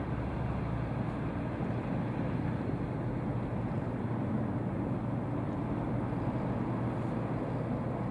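Steady low drone of a passing ship's engines, mixed with the rush of its bow wave and wash along the hull.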